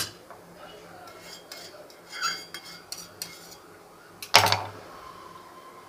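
A metal spoon clinking and scraping against a small steel bowl and a stainless steel pot as saffron milk is scraped into the pot. There are light clinks, then one loud metallic clank a little over four seconds in.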